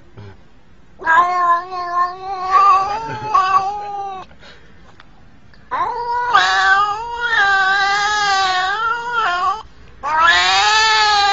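Black-and-white domestic cat yowling in three long, wavering calls of a few seconds each: the first about a second in, the second around the middle, and the third starting near the end.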